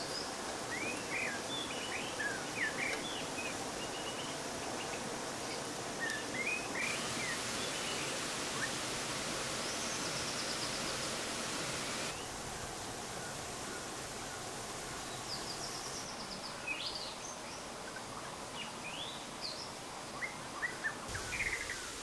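Steady rushing of a waterfall, with small birds chirping briefly now and then.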